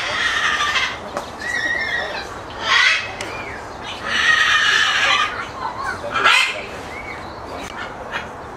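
Parrots screeching and squawking: four loud harsh calls, the longest lasting over a second, with short warbling chirps between them.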